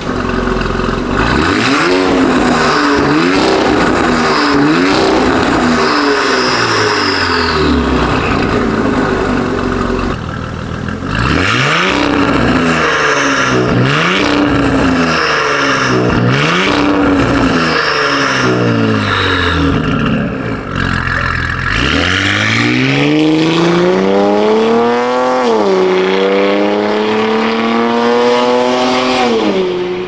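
Porsche Cayenne Coupe S 2.9-litre twin-turbo V6 through a Fi valvetronic cat-back exhaust with catless downpipe, revved in a series of quick blips, a short pause about ten seconds in, then another series. From about 22 s in it pulls away under hard acceleration, the pitch climbing, dropping at an upshift about 25 s in, and climbing again before easing off near the end.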